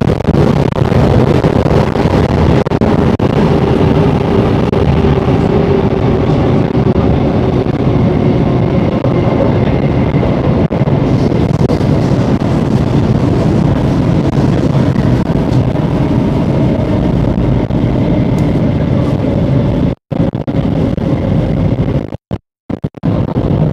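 Downtown Line MRT train running through a tunnel, heard from inside the carriage: a loud, steady rumble with a faint steady whine. The sound cuts out abruptly for an instant twice near the end.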